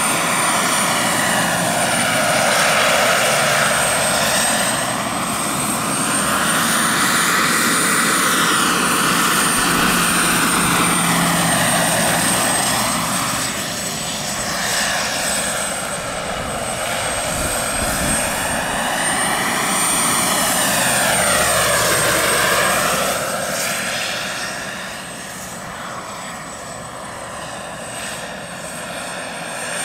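Large-scale model Mil Mi-24 helicopter in flight: its Taurus turbine gives a steady high whine over the rotor noise. The sound swells and fades as the helicopter moves about, and it falls off after about 24 seconds.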